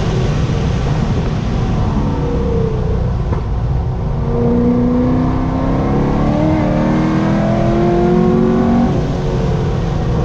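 Chevrolet Corvette C6 Z06's 7.0-litre LS7 V8 accelerating hard, its pitch climbing steadily for several seconds and dropping about nine seconds in at an upshift, over a steady low rumble.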